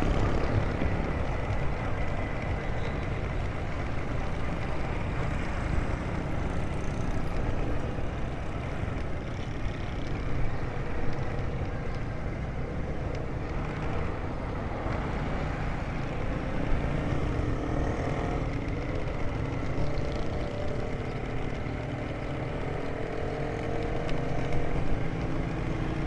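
Steady traffic noise heard while moving through city streets: engines of motorcycles and auto-rickshaws running close by, with road rumble.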